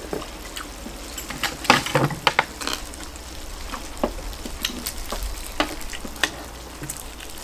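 Chopsticks stirring through saucy spicy duck in a large pot, together with wet eating sounds: irregular sticky clicks and crackles over a faint hiss, busiest about two seconds in.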